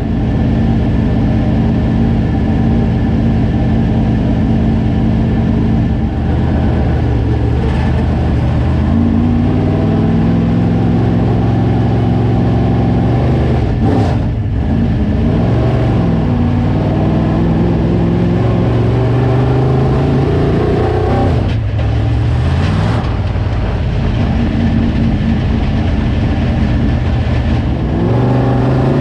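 Dirt late model race car's V8 engine running loud and accelerating again and again, its pitch climbing each time, with two brief drop-offs in the middle where the throttle comes off.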